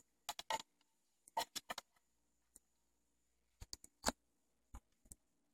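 About a dozen short clicks and taps in small clusters, the sharpest about four seconds in, as an LP is laid on the platter of a Marantz 6100 belt-drive turntable and the turntable is handled.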